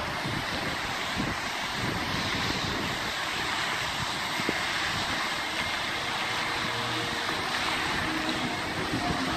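Steady rushing hiss of a large fountain's water jets spraying and falling back into the basin. Wind buffets the microphone throughout.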